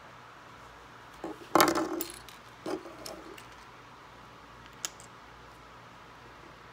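Plastic Lego bricks and a part-built Lego model knocking and rattling against a wooden tabletop: a short clatter about a second and a half in, a smaller one a second later, and one sharp click a few seconds in.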